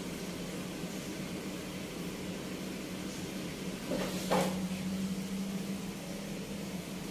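A steady low hum with a faint hiss throughout, and one brief knock about four seconds in.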